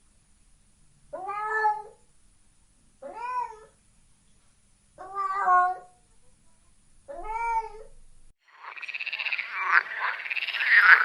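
A cat meowing four times, about two seconds apart, each call under a second long and rising then falling in pitch. A little after eight seconds in, frogs start croaking in a fast, dense chorus that is louder than the meows.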